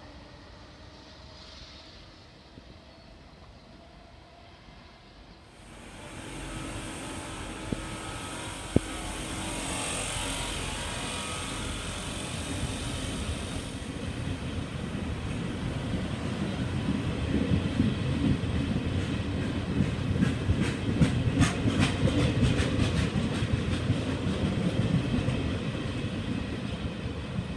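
Trenitalia regional passenger train of medium-distance coaches rolling past along the platform: a rumble of wheels on rail that comes in about six seconds in and builds. About three-quarters of the way through, a quick run of sharp clicks sounds as the wheels cross rail joints.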